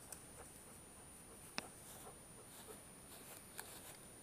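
Near silence: faint rustling in dry grass, broken by a few sharp clicks, the loudest about one and a half seconds in.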